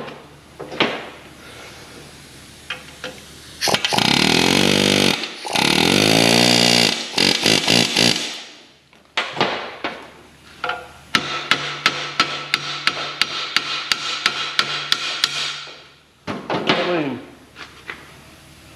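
Pneumatic air hammer driving rivets through new brake lining, in several bursts that rise in pitch as the tool comes up to speed. The longest burst comes in the second half, a run of sharp regular strikes, after a few separate knocks at the start.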